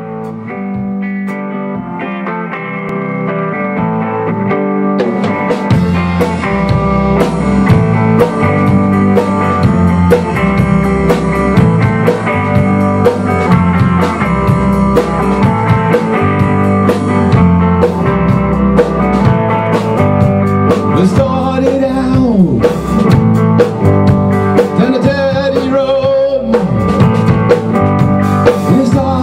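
Rock band playing live: two electric guitars and a drum kit. A guitar intro builds in level over the first few seconds, and the drums come in about five seconds in.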